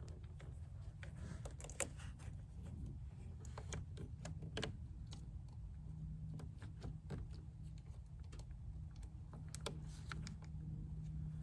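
Scattered light clicks and taps from handling a multimeter and its test leads at the car battery, over a low steady hum.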